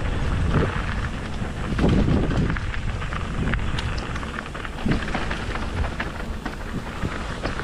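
Mountain bike ridden fast down a rocky downhill trail: a steady rush of wind on the microphone under frequent clicks and knocks as the tyres and bike hit the rocks, with a few louder swells over bumps.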